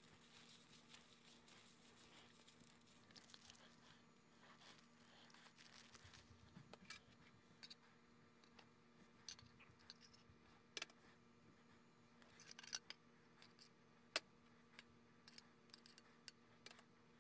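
Near silence: quiet room tone with a faint steady hum and, from about halfway through, a scatter of faint sharp clicks and ticks.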